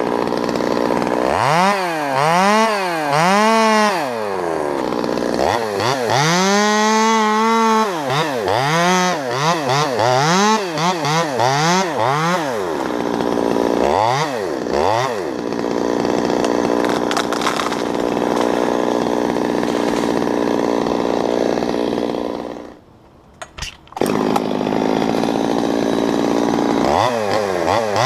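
Stihl MS 200T top-handle two-stroke chainsaw revving up and down over and over for about the first fifteen seconds, then held at full speed as it cuts into the walnut trunk. The sound drops out suddenly for about a second, some 23 seconds in, then returns.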